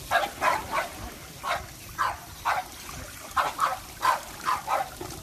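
French bulldog puppy giving about a dozen short barks in quick, uneven succession while being bathed.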